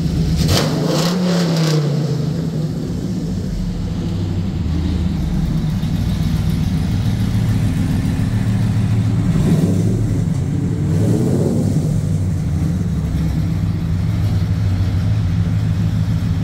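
Ram pickup truck's engine idling with a steady exhaust rumble, revved briefly twice: once just after the start and again about ten seconds in.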